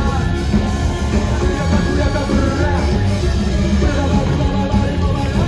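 A rock band playing live, heard from within the crowd in a concert hall: electric guitar and keyboards over a heavy, steady bass and drum beat.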